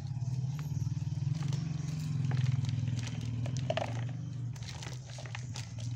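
A small engine runs steadily as a low, fast-pulsing hum, the loudest sound throughout. Over it come scattered light crackles and rustles of dry bamboo leaves and potting mix, handled while an alocasia is worked out of a plastic pot.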